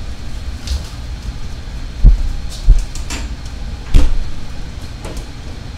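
A few dull knocks and bumps from things being handled and set down on a kitchen counter, the loudest about two and four seconds in, over a low steady rumble.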